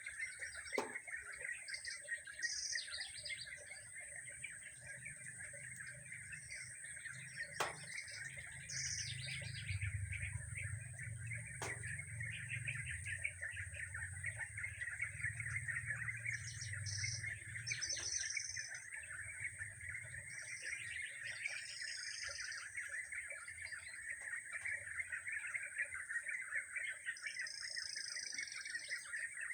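Several small birds chirping and calling in short, scattered phrases, some slurring down in pitch, over a continuous steady high-pitched drone. A few sharp clicks and a low rumble through the middle.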